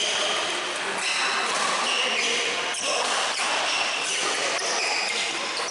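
Badminton rally: rackets striking the shuttlecock with sharp cracks, and shoes squeaking in short high chirps on the court floor.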